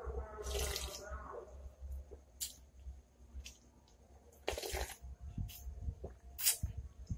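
A person slurping spicy ramen broth straight from a plastic bowl: four short slurps, the longest and loudest past halfway. A drawn-out pitched call fades out in the first second.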